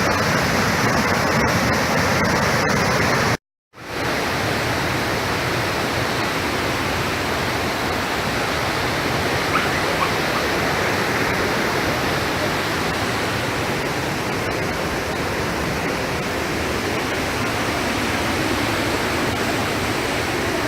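A large waterfall's water falling and crashing, a steady loud rush. It cuts out for a moment a few seconds in, then resumes.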